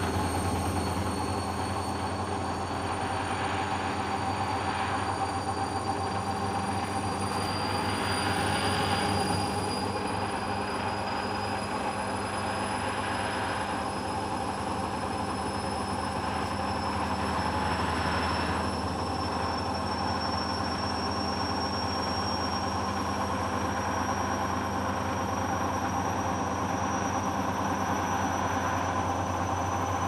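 Hoover front-loading washing machine on its first intermediate spin with an unbalanced, over-sudsed load: a steady motor and drum hum with a high whine that slowly rises in pitch, and a few brief swishing surges along the way.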